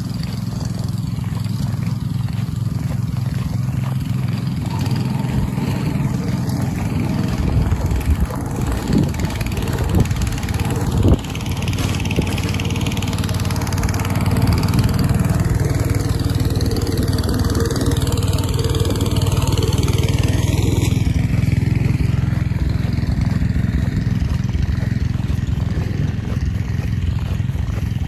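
Snowblower engine running steadily while clearing snow, louder from about halfway through. Wind rumbles on the microphone, and there are a few knocks about ten seconds in.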